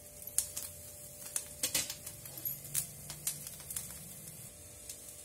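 Onion and garlic frying in a little oil in a kadai, giving sparse, irregular crackles and pops over a faint steady hum. The pieces are being sautéed to the glassy, translucent stage.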